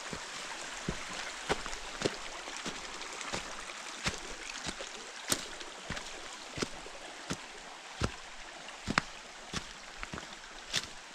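Footsteps on a damp forest path, sharp irregular steps and snaps one or two a second, over a steady rush of flowing stream water.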